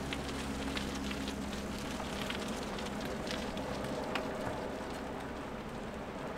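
Loaded mountain bikes rolling past on a gravel path, their tyres crunching and crackling over the grit, over a steady rushing background noise. The crackling thins out after about four seconds as the bikes move away.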